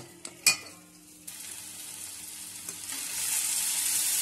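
A spoon clinks sharply twice against a steel bowl of semolina batter in the first half-second. Then comes the sizzle of a spiced potato and onion masala frying in oil in a kadai as a spatula stirs it, a steady hiss that grows louder about three seconds in.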